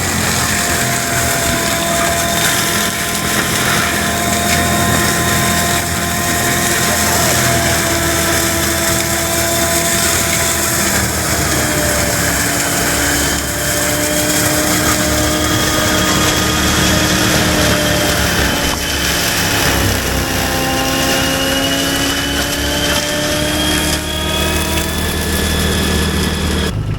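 Skid steer running a forestry mulcher head while clearing brush for a trail: a steady engine and hydraulic drone, with the mulcher's whine slowly shifting in pitch as it works. It cuts off abruptly near the end.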